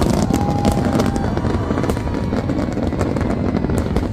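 Dense barrage of aerial fireworks: a continuous low rumble of shell bursts with many sharp cracks and bangs over it.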